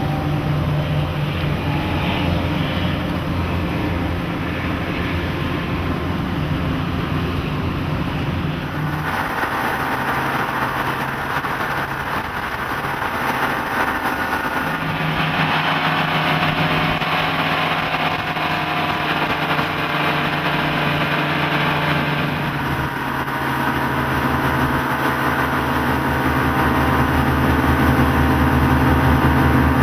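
Twin Mercury 225 HP OptiMax two-stroke outboards running steadily at planing speed, with wind and water rushing past the hull. The sound changes about nine seconds in.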